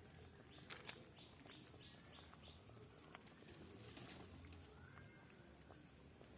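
Quiet outdoor rural ambience with a small bird calling a quick run of about seven short high notes, roughly three a second, over the first couple of seconds, then a few faint chirps later on.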